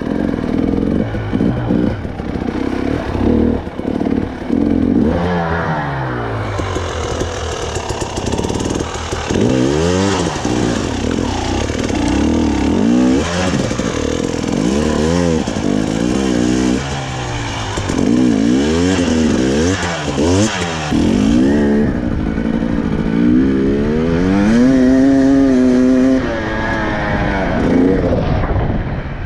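KTM 300 TPI two-stroke enduro bike engine, ridden off-road, its revs rising and falling over and over in short throttle bursts, then held higher for a couple of seconds near the end.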